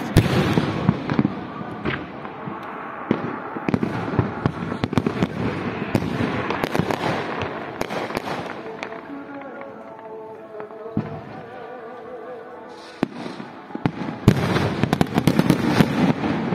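Aerial fireworks bursting: a rapid string of sharp bangs and crackling. They thin out past the middle and build to a dense barrage near the end.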